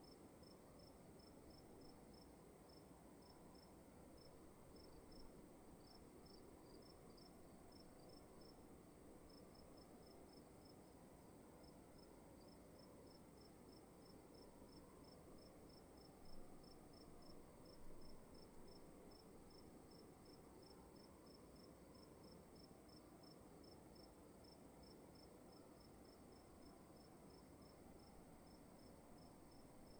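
Crickets chirping faintly in a steady, even rhythm, with a continuous high-pitched whine above the chirps and a low soft hiss of room tone underneath.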